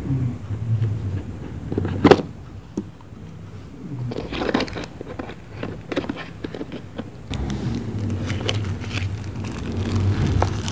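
Hands opening and handling a QMobile phone and its packaging: a sharp snap about two seconds in, then a run of small clicks and rustles, over a low steady background rumble.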